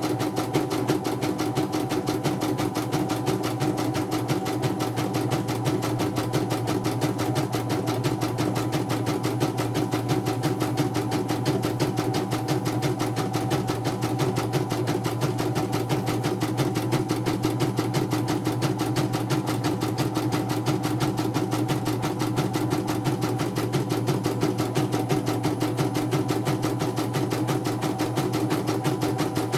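CNY portable computerized embroidery machine stitching a design, its needle running in a fast, even rhythm throughout. This is a test run after servicing the machine for a blank screen and skipping stitches.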